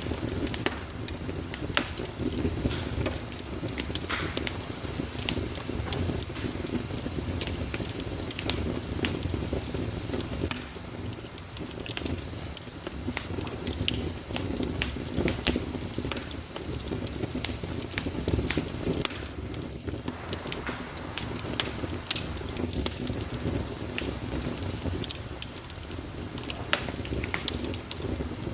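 Wood fire burning in a fireplace: irregular sharp crackles and pops over a steady low rush of flame.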